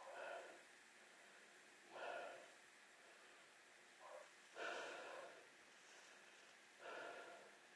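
Faint heavy breathing close to the microphone: a puff of breath about every two seconds, with no engine running.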